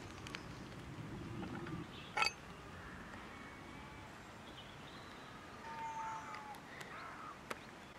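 Birds calling faintly in woodland, with thin whistled calls a little before the end. A sharp click comes about two seconds in, with a few lighter ticks later.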